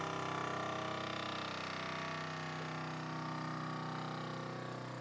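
Chamber vacuum sealer's pump motor running steadily, drawing the air out of the chamber during its automatic vacuum cycle.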